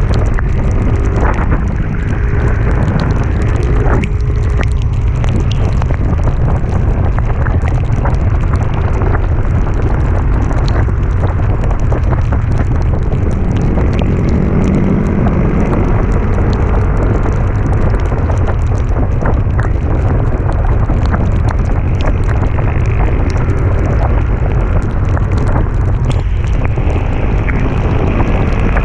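Heavy wind buffeting the microphone of a moving vehicle riding uphill, with the engine running underneath and scattered small ticks through it.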